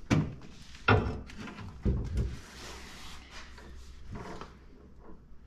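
Knocks and thumps of an aftermarket PRP bucket seat and its mounting frame being set down and shifted into place on a Jeep TJ floor: three sharp knocks about a second apart, then softer shuffling and a last knock near the end.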